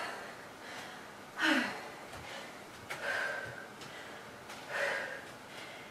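A woman breathing hard after a round of squat jumps, with three heavy, partly voiced exhales about a second and a half apart, the first the loudest.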